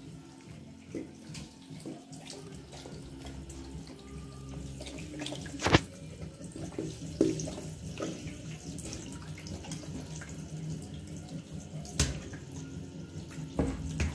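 Water running from a hand shower lying in a bathtub, with a Bernese Mountain dog puppy lapping at it. Sharp knocks stand out about six seconds in and again about twelve seconds in.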